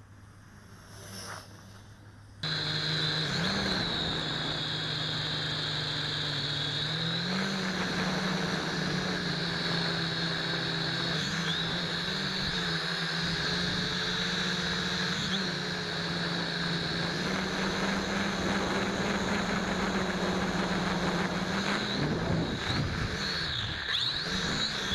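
MJX X500 quadcopter's motors and propellers whining steadily. The sound starts abruptly a couple of seconds in, its pitch steps up and down a little with throttle changes, and it wavers near the end.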